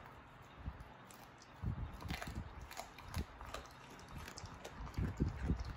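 A dog chewing a raw broccoli stem, making irregular crunching and mouthing sounds. The chewing starts about a second and a half in and gets busier near the end.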